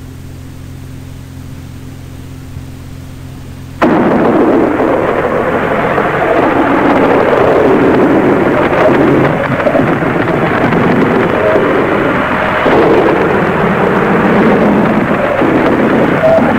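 Shortwave radio reception: a low steady hum, then about four seconds in a loud, dense rush of static cuts in suddenly and carries on, churning and shifting in texture.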